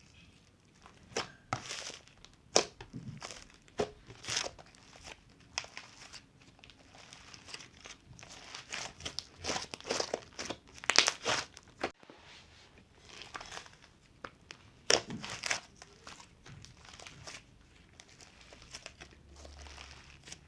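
Slime with foam beads mixed in being squished, stretched and poked by hand: irregular crackling and crunching pops, with a few louder snaps about halfway and three quarters of the way through.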